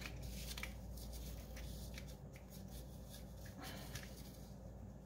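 Faint scattered clicks and light rustling from hands handling a small circuit board and pressing capacitor leads into its holes.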